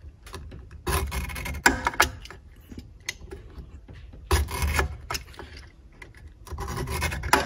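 A blade scoring a line through the Velcro disc on a floor-sanding edger's pad, in three strokes about three seconds apart, each lasting roughly a second.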